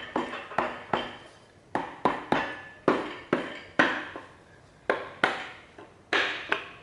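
Hand tools and loose metal parts clinking and knocking while the oil pump is unbolted from the front of a Nissan RB26DETT block: about fifteen sharp, irregular metallic taps, some with a short ring.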